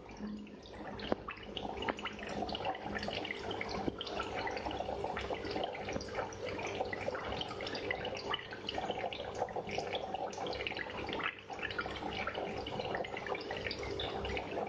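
Aquarium water trickling and splashing steadily, a dense patter of small drips and bubbles, with a steady hum underneath.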